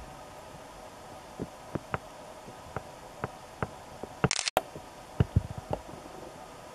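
Raindrops ticking irregularly, a few a second, over a faint steady hum. A little over four seconds in comes a short loud burst of noise that cuts off into a moment of dead silence.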